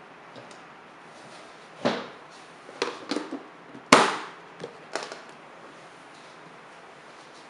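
Clear plastic food-storage container being handled and its lid pressed down by hand, giving a series of sharp plastic clicks and knocks as it snaps shut. The loudest snap comes about four seconds in.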